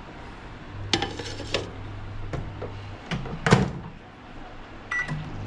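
Dishes clattering against a microwave oven's glass turntable, with a loud clunk about three and a half seconds in as the door shuts. Near the end comes a short keypad beep, and the oven's low hum starts as it begins heating.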